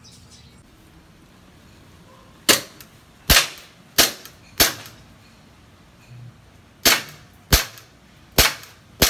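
Toy pistol being fired eight times, in two quick strings of four sharp cracks about two-thirds of a second apart, with a pause of about two seconds between the strings.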